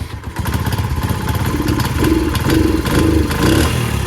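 Honda CD 70's small four-stroke single-cylinder engine running while still cold, revved in about five short blips from about a second and a half in.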